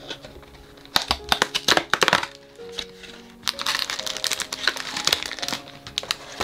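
A cardboard biscuit box torn open along its perforated flap, with a quick run of sharp cracks about a second in, then crinkling of the plastic-wrapped biscuit packs as one is pulled out. Background music plays throughout.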